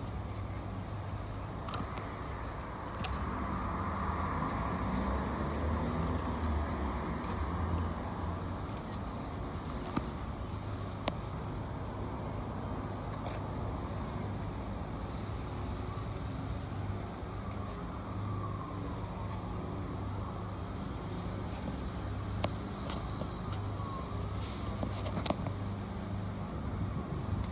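Steady road and engine noise inside a moving car, a low rumble with a few light clicks now and then.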